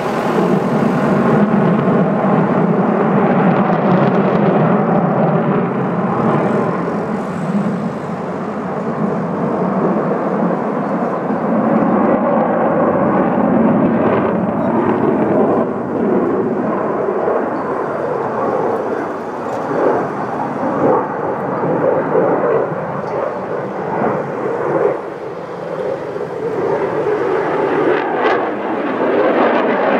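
A Sukhoi fighter jet flying overhead, its engines making loud, continuous jet noise that swells and eases as the aircraft manoeuvres. The noise dips briefly near the end.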